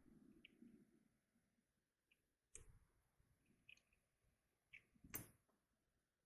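Faint clicks and light knocks of small RC car parts being handled as a bearing is worked out of an old hub carrier. There is a soft rustle at first, then a sharp knock, a few small clicks, and a louder knock near the end.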